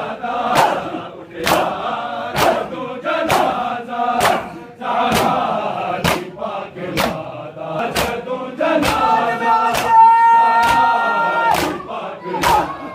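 A crowd of men performing matam, striking their bare chests together in a steady beat about once a second while chanting a noha (Shia lament). About nine seconds in, a voice holds one long note for over two seconds.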